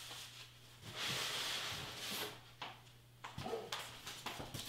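A board being fetched and handled: a scraping rustle lasting about a second, then several light knocks and taps.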